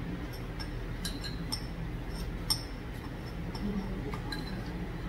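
Metal spoon clinking lightly against a small bowl, a handful of short sharp clinks at uneven intervals, the loudest about halfway through, over a steady low background hum.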